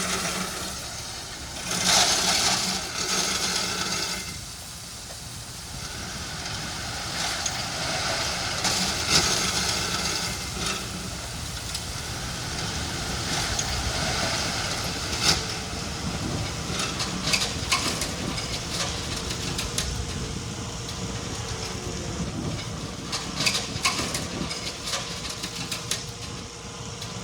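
Heavy road-construction machine engine running steadily, with scattered clicks and clatter over it.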